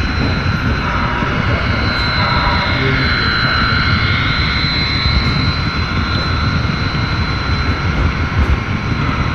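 HO-scale model train rolling along the track, heard from on board a flatcar: a steady whirring rumble of wheels on rails and motor, with a high steady whine and a few light ticks.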